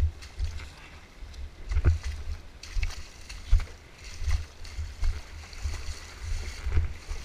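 Footsteps wading through a shallow, rocky stream: irregular splashes of water about once a second, with low rumbling thumps on the microphone.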